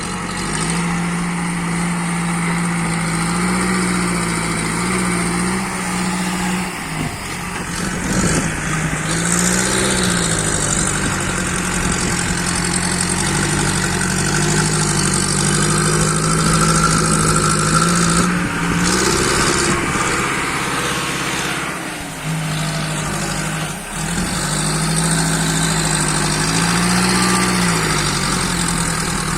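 Backhoe loader's diesel engine running, its pitch stepping up and down repeatedly as the throttle is raised and eased off.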